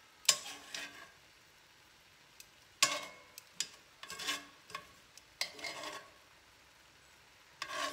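Metal tongs scraping and stirring fajita meat and peppers in a cast-iron skillet, in about five short bursts, over a faint sizzle of the simmering pan juices.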